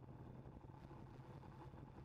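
Near silence, with only a faint, steady low hum.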